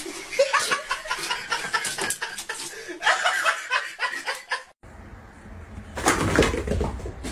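A person laughing over a run of short clicks and knocks. After a sudden break, there is a low rumble with a louder burst of noise near the end.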